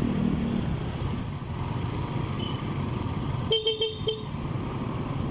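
Motorcycle running along a road with steady engine and road noise. About three and a half seconds in, a vehicle horn gives four short toots in quick succession.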